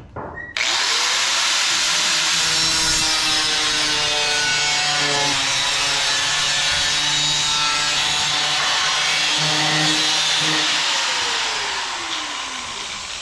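Corded angle grinder with a cut-off disc starting abruptly about half a second in and grinding through galvanized sheet-metal roof cap, a loud steady whine. Near the end it is released and spins down with a falling whine.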